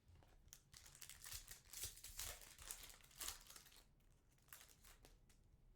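Foil trading-card pack wrapper crinkling and rustling as it is handled, a quick run of faint crackles that thins out after about four seconds.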